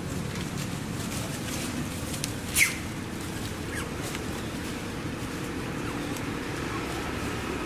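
Outdoor ambience with a steady low rumble. About two and a half seconds in, a single short, high animal squeak slides quickly downward.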